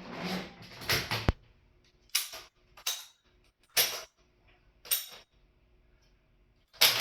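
Electrified antique National cash register (model 852-E) being operated: clicking and a sharp click, then four separate short mechanical clacks with a faint hum between them. Just before the end comes a loud, dense mechanical clatter as the machine runs through its cycle.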